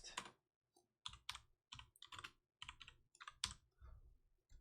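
Faint typing on a computer keyboard: a quick, irregular run of key clicks, as in typing a search to check a player's current team.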